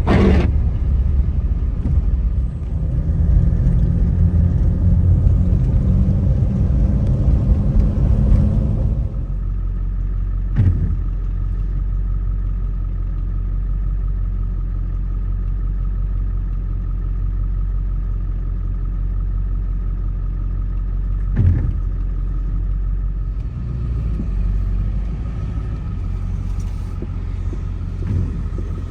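Low, steady rumble of a truck, rougher and louder for the first nine seconds and then settling to an even drone, with two short knocks along the way.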